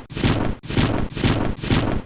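Japanese railroad crossing warning bell clanging in a steady rhythm, about two strikes a second.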